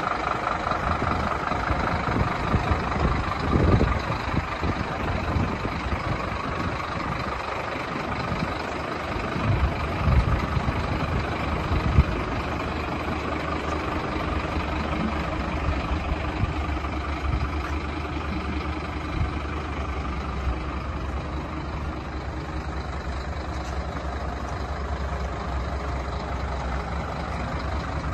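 Scania P230 skip-loader truck's five-cylinder diesel engine idling steadily, with a few knocks in the first half.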